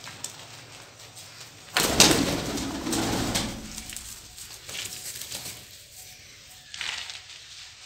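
Lakha fantail pigeons cooing, with a sudden loud burst about two seconds in that lasts about a second and a half.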